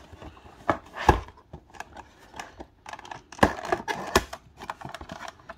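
Hands working the top flap of a cardboard Funko Pop box: scattered clicks and taps of cardboard, with sharp knocks about a second in and twice near four seconds, and a short scrape of cardboard between them.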